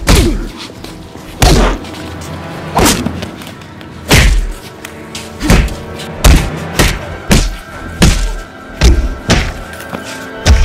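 Punch sound effects: about a dozen heavy thuds, coming faster in the second half, over a background music track.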